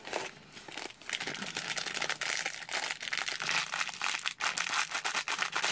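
Plastic blind bag crinkling and crackling as it is squeezed and worked open in the hands: a dense, unbroken run of crackles.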